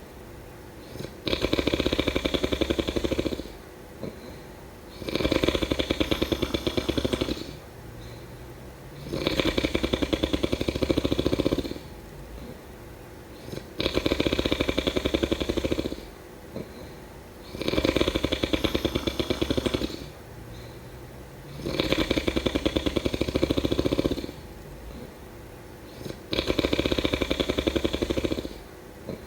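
A person snoring in a steady rhythm: seven loud snores, each about two seconds long and coming about every four seconds, with quieter breaths in between.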